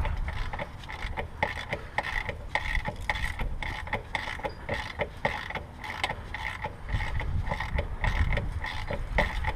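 Hand ratchet clicking in a steady back-and-forth rhythm, about two strokes a second, as it runs a motor mount bolt into its threads.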